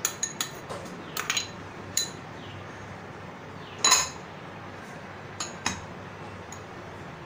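Glass bowls clinking and knocking together as chopped onions are tipped from a small glass bowl into a glass mixing bowl: a few quick light clinks in the first two seconds, a louder clink about four seconds in, and two more a little later.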